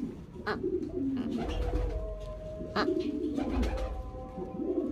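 Pigeons cooing in low, warbling phrases, with a few sharp clicks in between.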